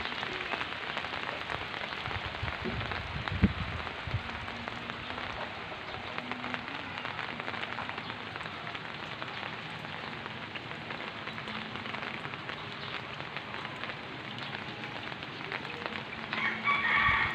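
Heavy rain falling steadily on garden plants and ground, a dense patter of drops. A single sharp knock comes about three and a half seconds in, and a short pitched call or voice sounds near the end.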